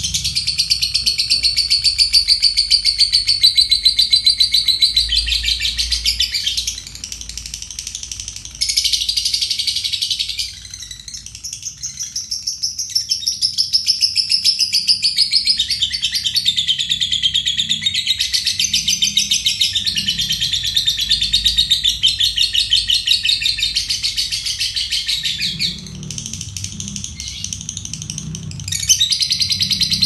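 Lovebird giving its long 'ngekek' song: a rapid, shrill chattering trill held for many seconds at a time, with short breaks about a quarter of the way in, a third of the way in, and near the end.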